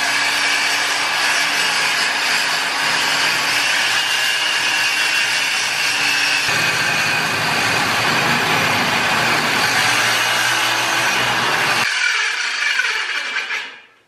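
Worm drive circular saw with a metal-cutting blade ripping a long aluminum sheet, a loud, steady cutting whine. About twelve seconds in, the cutting stops and the blade spins down with a falling whine.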